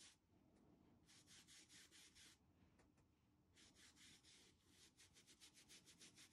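Faint swishing of a flat paintbrush stroked quickly back and forth over a fabric apron, laying craft paint over a stencilled border. Two runs of strokes, several a second, with a short pause between them.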